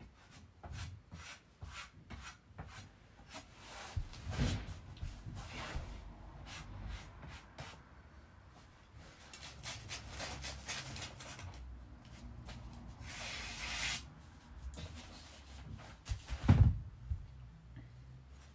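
Utility knife slicing shoji paper along a straightedge, with the paper rustling and rubbing and small scrapes and ticks of handling; a long hissing stroke of the cut comes a little past the middle. A dull thump about four seconds in and a louder one near the end.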